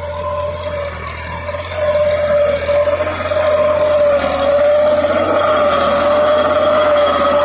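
New Holland tractor's diesel engine running under load, driving a Mahindra rotavator that churns through soil. A steady whine runs through the sound, which gets louder about two seconds in.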